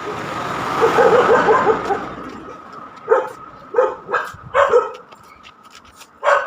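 Dog barking: a fast run of yapping barks about a second in, then three single barks less than a second apart, and another loud bark near the end.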